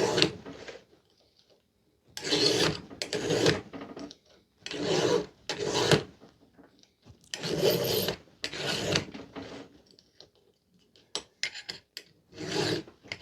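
Flat file rasping across the rakers (depth gauges) of a chisel-tooth chainsaw chain, taking the rakers down to the right height. The strokes come in three pairs, two strokes per raker with a pause between rakers, followed by a few light clicks near the end.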